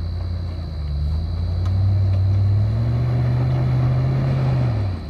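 Land Rover Discovery 2 engine revving under load as it crawls up a rock ledge. The engine note climbs in steps, holds high for a couple of seconds, then drops back sharply near the end.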